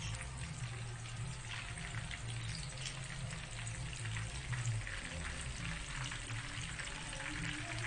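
Chicken-and-cheese pieces deep-frying in hot oil in a wok: a steady, dense crackling and bubbling sizzle.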